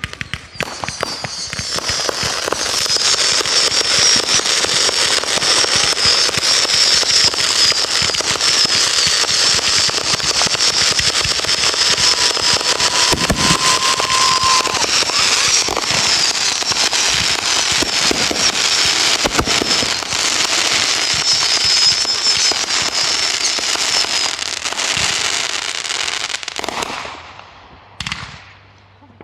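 Fireworks going off in a dense, continuous crackle, with a wavering high whistle running through it. The crackle thins out and fades a few seconds before the end.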